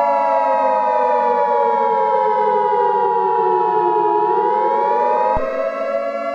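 Civil defense siren wailing, its pitch falling slowly for about four seconds and then rising again, over a steady tone that cuts off about five seconds in.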